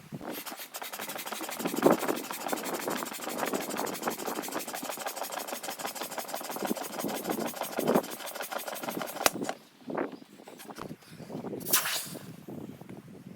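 Small electric air pump running steadily with a fast, even buzz, cutting off suddenly about nine seconds in. A short hiss of air follows near the end.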